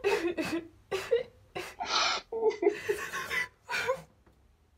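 A man laughing hard in a string of short bursts, which stop about a second before the end.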